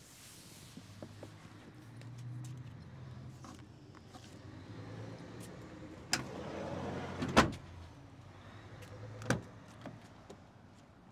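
Sliding side door of a Dongfeng M5 MPV being worked: a low hum, a click about six seconds in, then the door shuts with a loud thud, and another click follows a couple of seconds later.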